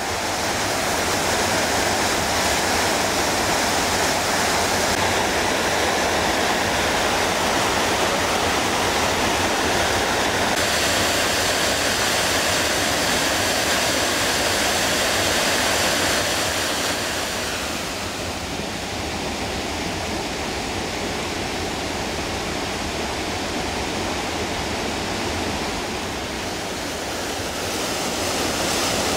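Alpine mountain torrent rushing down a waterfall and through a narrow rocky gorge: a dense, steady rush of white water, its sound shifting a few times and a little quieter from about 18 seconds in.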